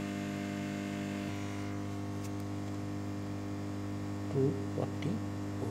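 Steady electrical mains hum with many even overtones, with two brief louder sounds near the end.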